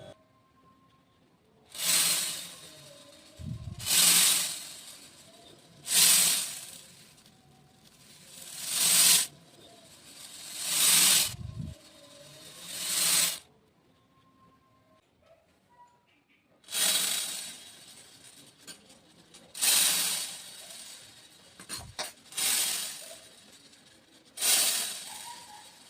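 Small beads being poured out in short streams: about ten separate pours of a second or so each, with a pause of about three seconds in the middle.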